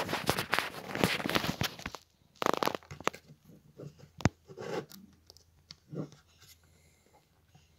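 Close handling noise: crackling and rustling for the first couple of seconds as the camera and cables are moved, then scattered light clicks and taps of battery and charger plugs being fitted together, with one sharp click about four seconds in.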